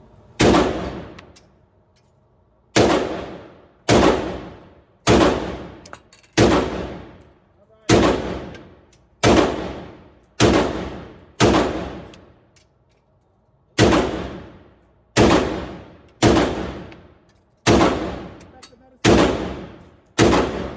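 Zastava ZPAP AK-pattern rifle fired semi-automatically: about fifteen single, loud shots, one every one to one and a half seconds, with a short pause near the middle. Each report rings out and fades over about a second.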